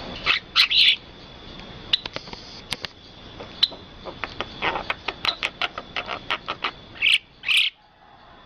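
Birds chirping in quick, sharp calls, some in rapid runs, over a steady high tone. The outdoor background cuts off abruptly near the end.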